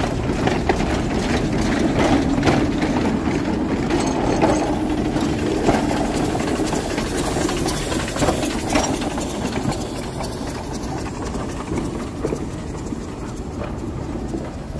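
Shay geared steam locomotive running, a string of exhaust chuffs over a steady rumble and hiss, growing quieter in the last few seconds.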